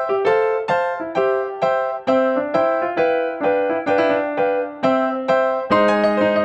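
Background music: electric piano playing a steady run of single notes, about two a second, with fuller chords coming in near the end.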